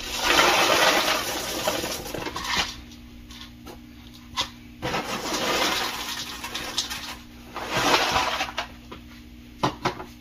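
Dry cereal poured from its box into a bowl in three goes, each a rushing rattle lasting one to two seconds, with a couple of short knocks between pours.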